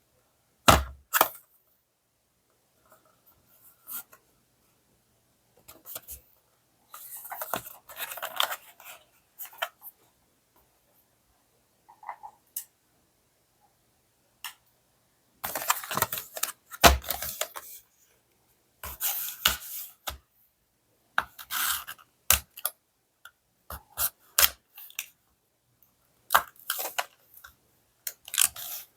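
A die-cast toy car's blister-card packaging being handled and torn open: crinkling plastic and tearing card in short bursts, with sharp clicks between quiet pauses.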